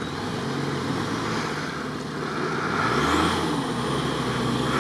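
Off-road 4x4's engine running under load as it works through a muddy rut, the revs rising and wavering from about three seconds in.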